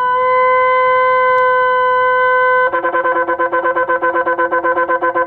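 Ram's-horn shofars being blown. One horn holds a steady, high note. About two and a half seconds in, a second, lower-pitched horn joins, and the sound wavers rapidly.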